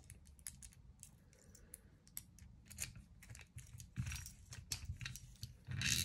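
Faint small clicks and rattles of a key working a cable-lock padlock and the lock's braided steel cable being handled and drawn out of a pistol's open action, with louder clusters of clicks about four seconds in and near the end.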